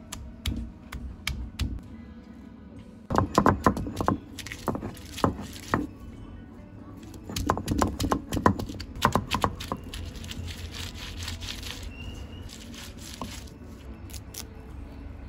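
Stone roller knocking and grinding on a flat stone grinding slab (a Sri Lankan miris gala), crushing garlic, spices and green chillies: two bursts of rapid knocking, about three seconds in and again around eight seconds in, with quieter rubbing between and after.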